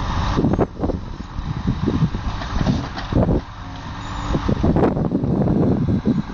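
A Volvo timber lorry's diesel engine running to drive its truck-mounted Loglift crane while the grapple lifts a bundle of logs. Gusts of wind buffet the microphone throughout.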